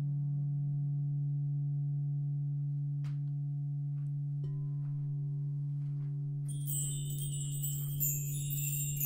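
A singing bowl rings on in one steady low tone with a few fainter overtones above it. About six and a half seconds in, a cluster of bright, high chimes starts shimmering over it.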